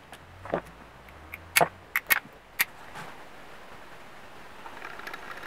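Small sharp metal clicks and taps from handling the carburetor and its fittings on a moped two-stroke engine's intake. There are about five of them in the first three seconds, the loudest bunched together around two seconds in.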